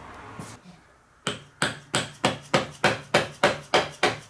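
Hammer tapping steadily, about three even taps a second, starting about a second in, to drive the E4OD transmission's electrical connector through the case.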